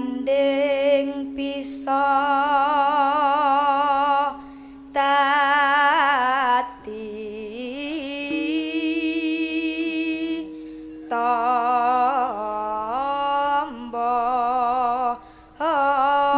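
A young Javanese sinden (female gamelan vocalist) sings slow, ornamented phrases into a microphone, with wide vibrato on the long held notes. There are about four phrases, broken by short breaths. A steady low held note runs beneath the voice.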